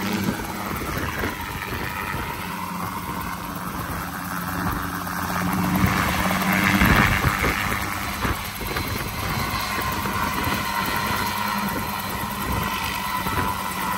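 CH-7 Kompress two-seat light helicopter running on the ground, its Rotax 914-based engine holding a steady tone under the rapid beat of the turning rotor blades. The sound swells louder about six to seven seconds in, then settles again.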